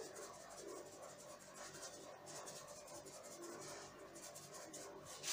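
Faint steady rasping of a hand-twisted spice grinder grinding dried herbs.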